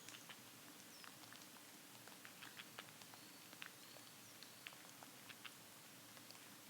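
Faint, irregular ticks and light patter, as of something moving in leaf litter, with a few brief, thin, high bird notes scattered through.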